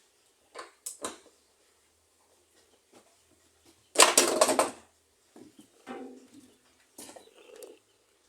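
Handling clatter of metal tools and machine parts on a workbench: a few light clicks, then one loud rattling clatter about four seconds in, then softer knocks and scrapes.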